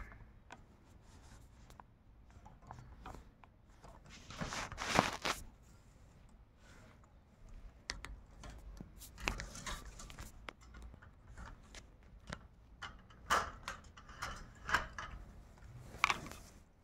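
Ring-necked parrot's beak biting and tearing into a green chilli: irregular sharp clicks and crunching crackles, with louder bursts about five seconds in and again near the end.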